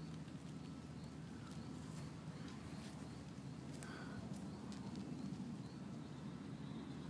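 Faint outdoor ambience: a steady low rumble with scattered light clicks and a soft high chirp repeating about twice a second.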